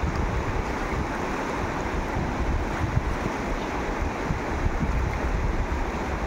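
Steady rushing of a fast river's rapids, mixed with low wind rumble on the microphone.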